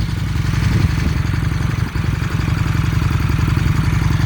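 2000 Excelsior-Henderson's V-twin engine idling steadily after a cold start, with even firing and no unusual rattles or funny noises, which marks a healthy engine.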